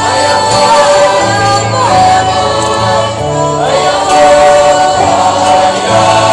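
A school choir of teenage girls and boys singing a hymn in held, sustained notes, a girl soloist singing into a microphone at the front.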